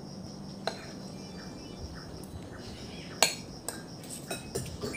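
A metal spoon clinking against a plate while eating: a few short, sharp clinks, the loudest a little past three seconds in, over a faint low steady hum.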